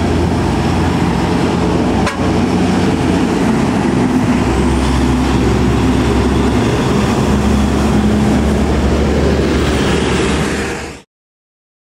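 Hino Ranger SG 260TH tractor unit's six-cylinder diesel engine running as the loaded truck and trailer drive past, louder from about four seconds in; the sound cuts off suddenly near the end.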